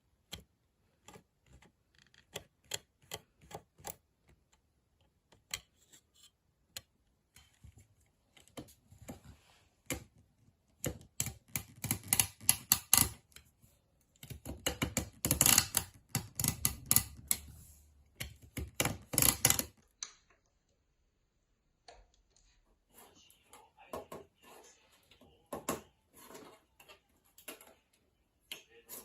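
Irregular light clicks and taps of hand work, with three bursts of rapid clicking and scraping about eleven, fifteen and nineteen seconds in.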